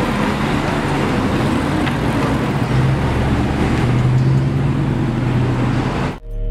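Lamborghini Aventador SVJ's V12 engine pulling away, with the exhaust note rising in pitch as it accelerates, over street noise. It cuts off suddenly near the end, where music starts.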